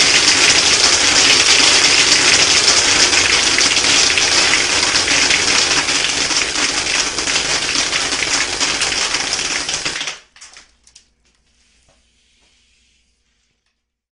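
Compressor-fed soda-bottle airsoft machine gun firing on full blast: compressed air hissing through the blowgun while a rapid, dense rattle of pellets streams out of the brake-line barrel. It cuts off sharply about ten seconds in, followed by a few light clatters.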